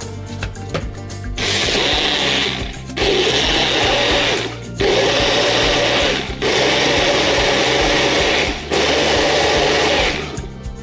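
Personal bullet-style blender motor running in five pulses of about one and a half to two seconds each, with brief breaks between them, blending a liquid mixture. Background music plays underneath.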